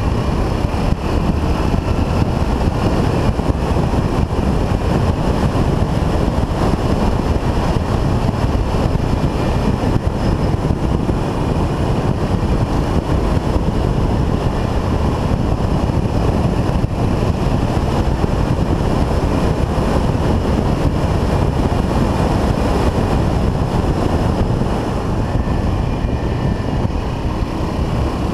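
Steady wind buffeting on the microphone of a GoPro mounted on a 1979 Yamaha XT 500, with the bike's single-cylinder four-stroke engine running at a steady cruise underneath.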